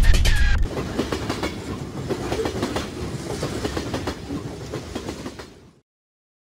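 Music cuts off about half a second in. A moving vehicle's rumbling ride noise with scattered clicks and rattles follows, fading out to silence shortly before the end.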